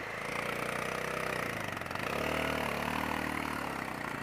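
Motorcycle engine pulling in first gear over a rough dirt track. The revs dip about halfway through and then rise again.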